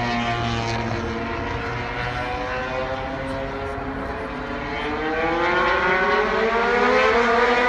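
Honda MotoGP racing motorcycle engine running on track, its pitch falling over the first few seconds, then rising and growing louder as the bike accelerates from about halfway.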